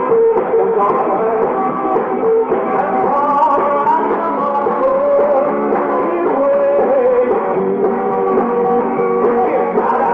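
A rock and roll band playing live, with a man singing lead over electric guitar and drums.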